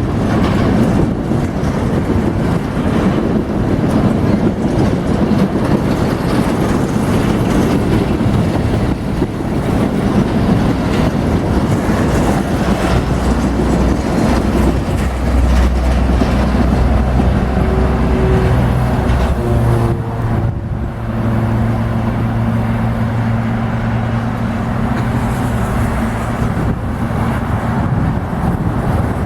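Freight train running past on the rails: a continuous rolling rumble of the wagons, with a steady low diesel locomotive engine drone coming in about halfway through.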